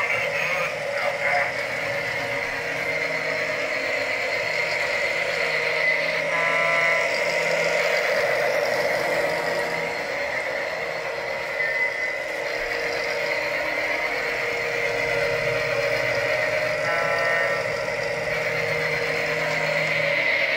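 Lionel John Deere battery-powered toy train running on plastic track: its small electric motor and gears whir steadily as the wheels roll. A short buzzing pitched tone sounds twice, about six and seventeen seconds in.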